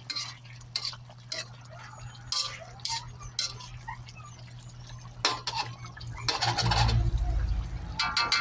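A metal spoon or ladle stirring the chicken curry in the pan, clinking and scraping against its sides in short strokes, with a louder, longer scrape about six seconds in.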